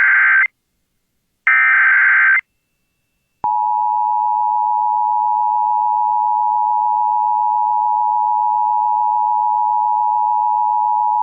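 Emergency Alert System broadcast: the tail of one SAME header data burst, then a second burst about a second long, both a harsh digital screech, encoding a child abduction (AMBER) alert. After a second of silence, about three and a half seconds in, the EAS two-tone attention signal (853 and 960 Hz together) starts and holds steady.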